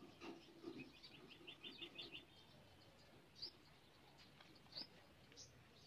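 Faint small-bird chirps: a quick run of about seven notes in the first couple of seconds, then a few single sharp chirps spaced out.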